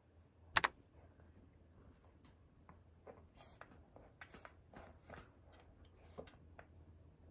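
Faint rustling of clothing, the baby carrier and a canvas tote bag being handled, with scattered small clicks and one sharper click about half a second in, over a low room hum.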